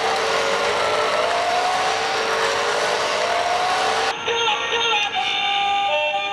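Small electric motor of a toy RC motorcycle whining as its wheels spin freely, rising slowly in pitch for about four seconds, under electronic background music.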